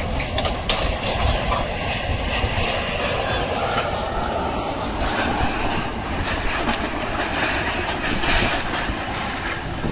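Flash-flood torrent of muddy water rushing past with a steady, heavy roar as it carries rocks and debris. A few sharp cracks and thuds in the first second or so come from a mud-brick house with a sheet-metal roof collapsing into the water.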